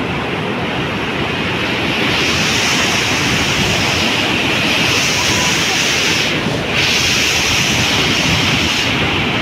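Flash-flood torrent of muddy water rushing, a loud steady rush of water that dulls briefly a little past halfway.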